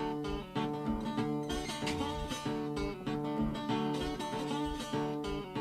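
Acoustic guitar picking a steady country-blues accompaniment, instrumental with no singing.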